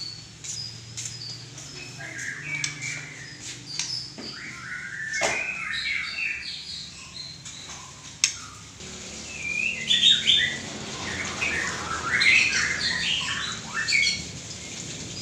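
Murai batu (white-rumped shama) singing a varied run of whistled phrases and chirps, growing denser and louder in the second half.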